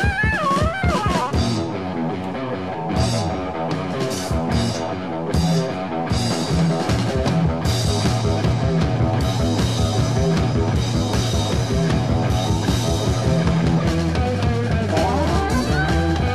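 1970s Italian progressive rock band playing an instrumental passage on drum kit, guitar and bass, with a fast, even run of drum strokes through the middle.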